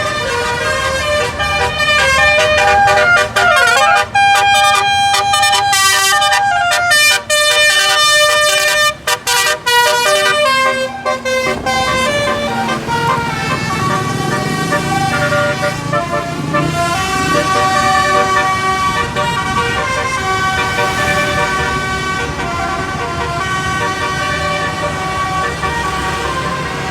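Indonesian bus telolet horn, a multi-tone air horn playing a tune in quick stepping notes with sharp stops and a brief swooping glide. After about twelve seconds the horn tones run on more steadily over a lower rumbling noise.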